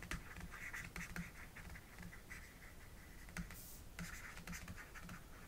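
Faint scratching of a pen stylus writing on a tablet surface, in short strokes, with a few light taps of the pen tip.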